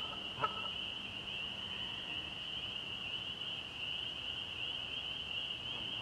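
A steady, high-pitched, wavering trill from a wetland chorus runs on, with two short sharp calls near the start.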